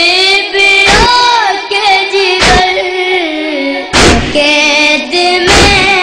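Two boys chanting a noha, a Shia lament, in unison, with a heavy chest-beating (matam) thump about every second and a half, four times.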